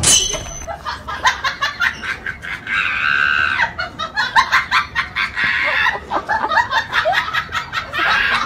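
High-pitched human laughter in quick cackling bursts, broken by a few drawn-out squeals.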